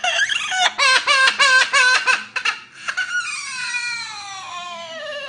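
Crying like an infant's: a quick run of short sobbing cries, then one long wail that falls steadily in pitch.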